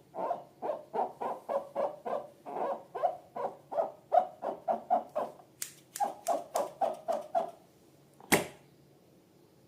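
Slime squelching as it is squeezed and worked by hand, in quick rhythmic squishes about five a second. The squishes stop about seven and a half seconds in, and about a second later comes a single sharp snap, the loudest sound.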